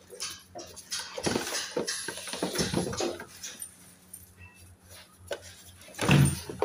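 Irregular metallic clinks and knocks, like tools and metal parts being handled in a workshop, thinning out after about three seconds, then a louder short sound near the end.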